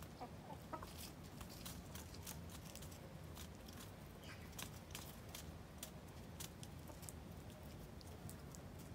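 Hens clucking softly, a few short calls in the first second and another about four seconds in, with scattered sharp ticks of pecking at food throughout.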